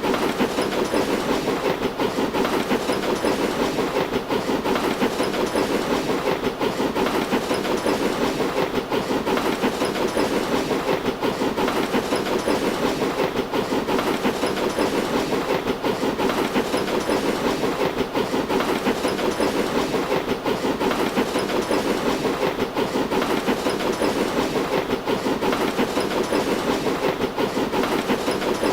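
Train-running sound effect: a continuous rolling rumble with a fast, busy rail clatter, the treble dipping slightly about every two seconds.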